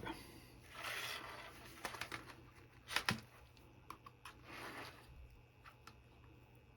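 Faint handling noises at a workbench: two soft rustling hisses and a few sharp clicks, the loudest about three seconds in.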